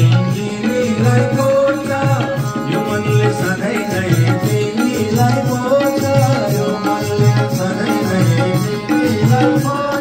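Nepali Krishna bhajan music: a drum keeps a steady beat under held, ornamented melodic notes.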